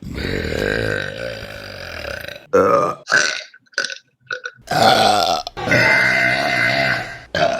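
Women burping loudly: one long drawn-out burp, then a few short bursts, then two more long burps one after the other.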